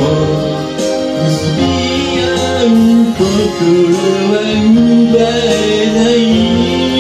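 Music: a man singing a sustained, gliding melody over guitar accompaniment.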